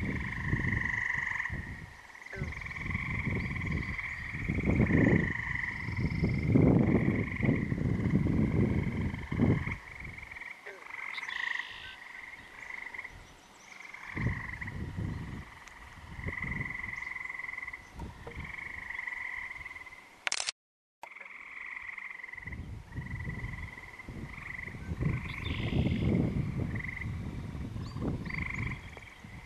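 A chorus of American bullfrogs calling at a lake, with deep croaks about a second long coming again and again over a steady, higher-pitched trilling in the background. The sound cuts out completely for a split second about two-thirds of the way through.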